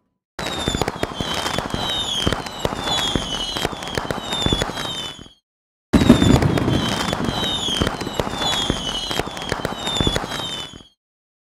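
Fireworks sound effect: dense crackling pops with short falling whistles, one or two a second. It plays as two near-identical runs of about five seconds, with a half-second break between them.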